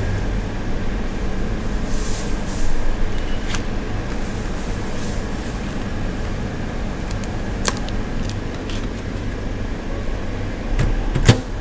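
Steady low machine hum of the store, with the plastic wrap and lid of a packaged stew bowl rustling and clicking as it is opened. Near the end comes a sharp clack as the microwave oven door is shut.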